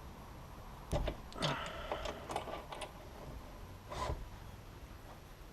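Handling noise from objects being moved at a workbench: a knock about a second in, a run of lighter clicks and rattles after it, and another knock about four seconds in.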